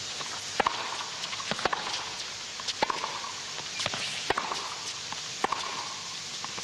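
Tennis rally: a ball struck back and forth from the baseline, with a sharp racket hit about once a second and softer bounces between, over a quiet, steady crowd hush.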